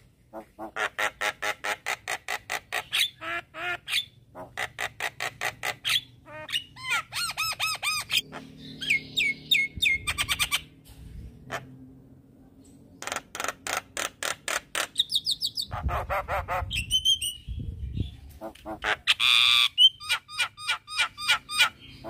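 Javan myna singing in long runs of rapid, repeated harsh notes, about four or five a second, broken by a few whistled glides near the middle and a brief harsh burst near the end.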